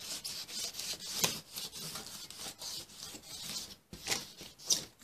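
Rigid foam block with a rough surface rubbing back and forth along N-scale model railway rails, scraping off dirt. It is an irregular run of scraping strokes, with sharper scrapes about a second in and near the end.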